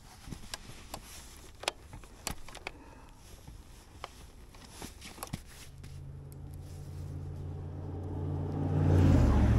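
Plastic buckles clicking and straps rattling as a load is strapped onto a motorbike's rear carrier. About halfway in, a vehicle engine approaches and grows steadily louder, passing close near the end, where its pitch drops as it goes by: a pickup truck carrying a camper.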